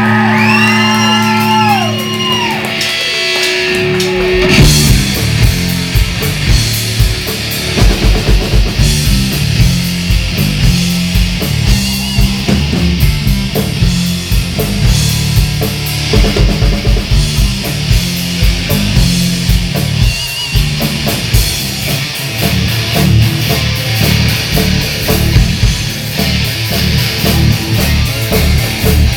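Live rock band playing with electric guitar and drum kit. It opens with a few seconds of held, sliding notes, then the full band with drums comes in about four seconds in and plays on loud and driving.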